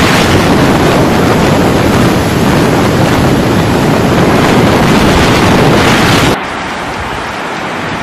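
Typhoon wind blasting across the microphone with driving rain, a loud steady rush. About six seconds in it cuts off abruptly to quieter, steady heavy rain.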